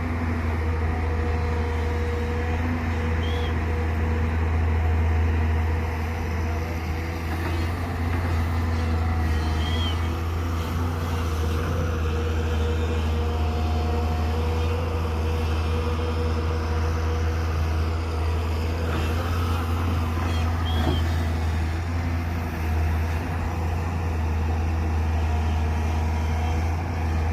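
Volvo 170 excavator's diesel engine running steadily under work, a constant low drone, with a faint short high chirp a few times.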